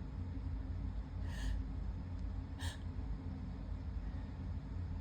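A person sniffling between sneezes in a sneezing fit: two short sniffs, about a second and a half in and again just under three seconds in, with quiet breathing between.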